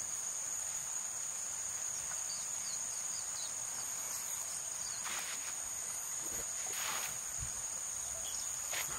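Insects calling outdoors at dusk: a steady high-pitched chorus held on one pitch, with a few faint short chirps in the middle.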